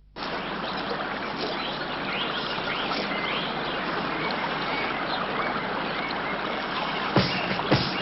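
Steady rush of running water with faint bird chirps over it. About seven seconds in, sharp drum hits begin.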